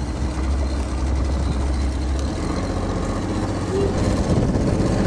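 Small boat's outboard motor running steadily while underway, with wind and water noise; the low engine drone shifts about two seconds in.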